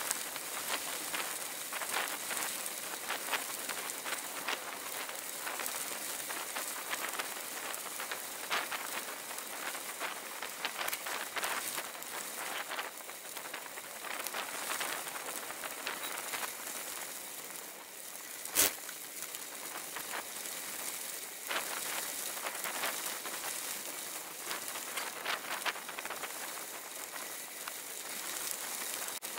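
Bicycle tyres rolling over a loose gravel road: a steady crackling hiss of grit and stones with many small clicks, picked up by a bike-mounted camera. One sharp click stands out about two-thirds of the way through.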